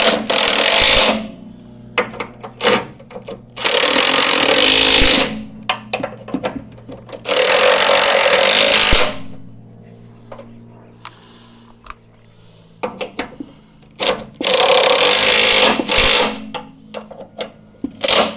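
Impact wrench tightening the mounting bolts of a rear step, in four bursts of one to two seconds each, with short metallic clinks of the socket and tool in between.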